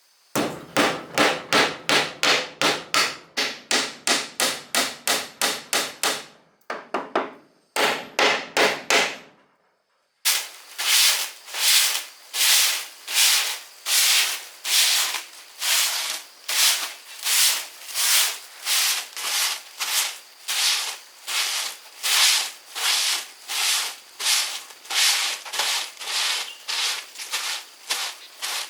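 A hand tool worked back and forth on wood in rhythmic strokes, about three a second, stopping for about a second near ten seconds in before carrying on at a slightly slower, steady pace.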